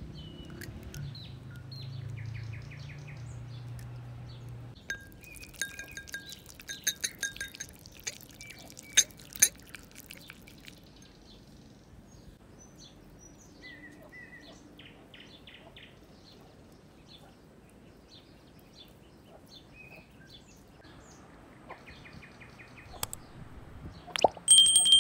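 Eggs being beaten in a glass bowl: a quick run of clinks against the glass about six to ten seconds in, with birds chirping on and off throughout. A short, bright ring near the end is the loudest sound.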